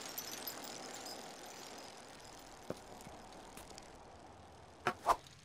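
Bicycle rolling along: a steady hiss that slowly fades, with two sharp clicks close together near the end.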